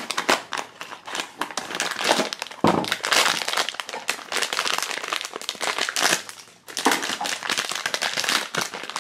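Foil blind bag crinkling and crackling as hands work it open, in rapid irregular bursts with a short lull about two-thirds of the way through.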